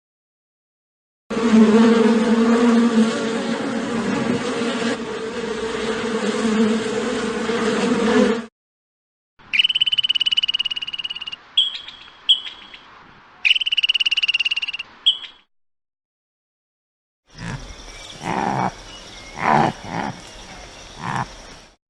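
Three separate animal sound-effect clips in turn, split by short silences: a steady buzz lasting about seven seconds, then several bursts of high trilling, then a few short calls repeated about once a second.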